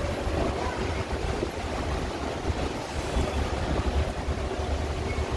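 Strong wind buffeting the microphone: a gusty low rumble that comes and goes in uneven pulses.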